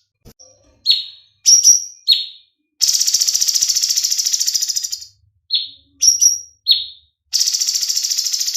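Cucak cungkok songbird singing: a few short, high whistled notes that slide downward, then a long, fast, buzzy trill lasting about two seconds. Another run of short notes follows, and a second fast trill begins near the end.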